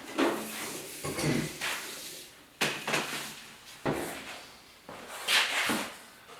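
Hard objects being handled: several separate clunks and scrapes, the sound of taking apart or moving shop-light fixture parts.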